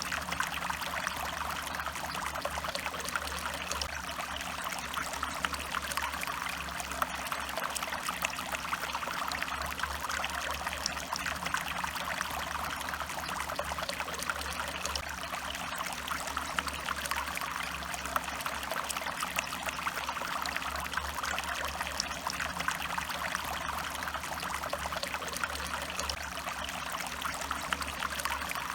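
A stream running and trickling steadily over stones, an even rush of splashing water with a low rumble underneath.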